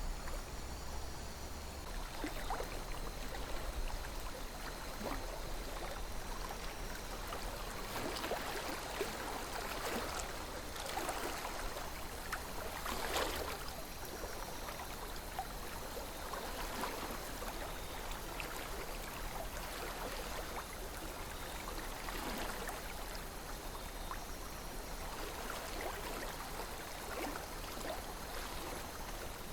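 River water flowing gently, a steady burble with many small splashes and gurgles, a few a little brighter than the rest.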